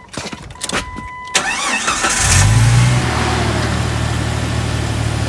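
Jeep engine starting: a few clicks and a steady high tone, then the starter cranks briefly and the engine catches about two seconds in. It revs up and settles into a steady idle.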